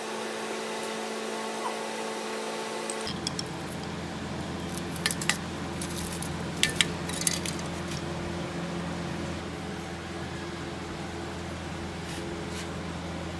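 A few sharp metal clinks and taps from hand tools and generator parts being handled, bunched a few seconds in, over a steady background hum.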